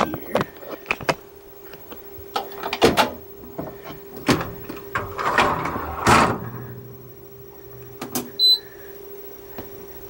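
Clicks, knocks and a rattle from handling a Haier HDC1804TW portable countertop dishwasher: its door is opened and the wire dish rack moved, with the rattling loudest about five to six seconds in. Near the end there is a short, high electronic beep from the control panel as the unit is switched on.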